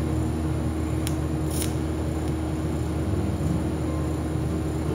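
TIG welding arc running steadily as a bead is laid with hand-fed filler rod: an even hum and hiss from the arc, with two brief crackles about a second in.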